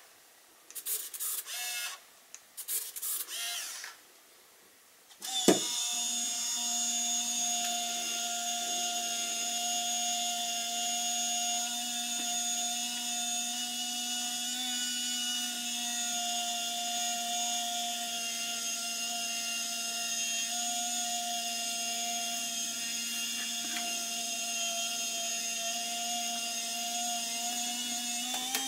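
Pentax Espio 120SW compact film camera's motor: a few short whirs, then a click about five seconds in and a long, steady motorised whine as it rewinds the film at the end of the roll, the frame counter running down to zero. The whine stops near the end.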